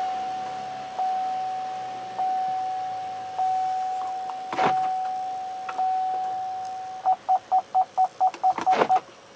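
GM Daewoo Alpheon's in-cabin warning chime strikes the same tone about every second and a bit, each strike fading away. About seven seconds in it turns into quick beeps, about five a second, the reverse-gear parking warning, which stop about two seconds later. A couple of sharp clicks sound partway through, one in the middle and one near the end.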